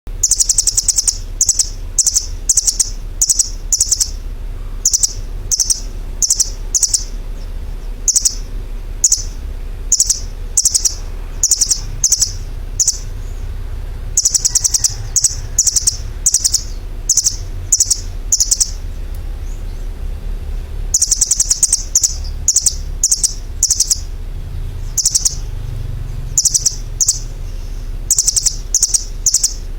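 A bird chirping: short, high chirps repeated in quick runs of several, about two or three a second, broken by short pauses. A steady low hum lies underneath.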